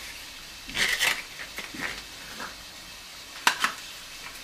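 Knife scraping cream cheese out of a plastic tub into a plastic mixing bowl: a few short scrapes and taps, the loudest about a second in, then a sharp knock near the end.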